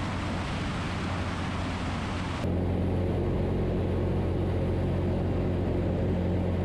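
Zenith CH 750 Cruzer light aircraft in cruise flight: a steady engine and propeller drone, first heard from outside the fuselage under a heavy rush of wind. About two and a half seconds in it switches to the more muffled, even engine hum inside the cabin.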